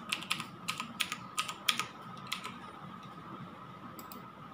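Computer keyboard being typed on: a run of separate keystrokes over the first two and a half seconds, then a quick pair of clicks near the end.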